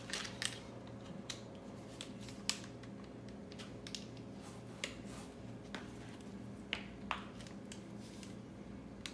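Scattered light clicks and taps as plastic and metal door-latch parts are handled and fitted, over a steady low hum.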